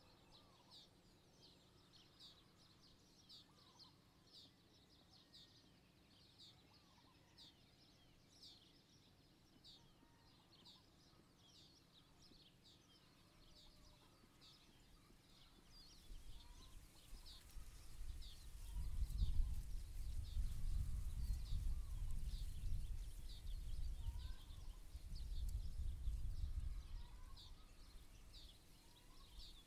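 A bird repeats short high chirps about twice a second, with a few fainter calls of other birds. About halfway through, a low rumbling noise comes up and swells and fades unevenly, louder than the chirps.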